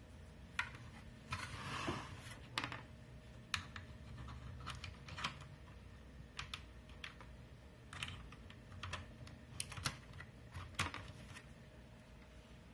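Scattered light clicks and taps with a short rustle about a second in: hands handling a charging cable, its plastic plug and nearby small gear.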